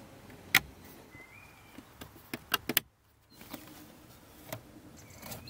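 Sharp plastic clicks and knocks of interior trim being pressed back into place under a BMW E39's dashboard by hand. The loudest click comes about half a second in, followed by a quick run of three clicks around two and a half seconds and one more near the end.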